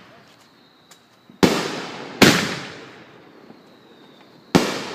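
Fireworks exploding: three sharp bangs, two close together about a second and a half in and a third near the end, each echoing and dying away.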